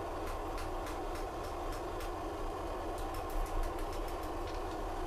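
Steady roar of a forge, with a string of light, sharp taps and crackles as hot steel is worked on the anvil during forge welding, quickening briefly a little past the middle.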